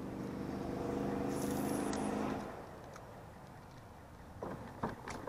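A motor hums steadily at an even pitch, then stops about two and a half seconds in. Near the end come a few short clicks and knocks.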